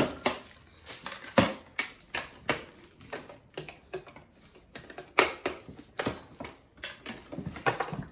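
Hard plastic parts of a Silvercrest juicer being handled and set on the machine: irregular clicks and knocks, some crinkling of a plastic wrapping bag.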